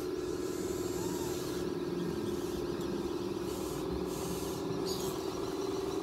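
Electric drive motors and gearboxes of a radio-controlled D11 bulldozer model whining at a steady pitch as it pushes a mound of dirt.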